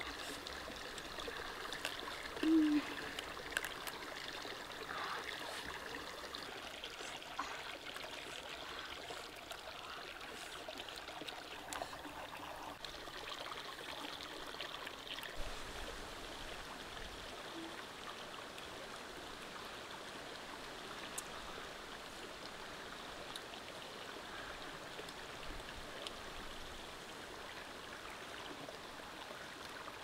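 Small stream running and trickling over rocks, a steady even rush, with a few faint clicks in the first seconds and a brief low sound about two and a half seconds in.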